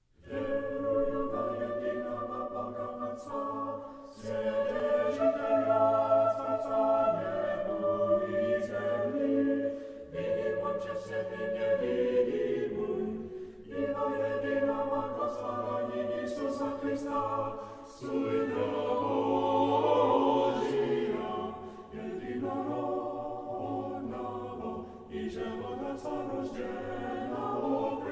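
Choral music: a choir singing sustained chords that change every few seconds.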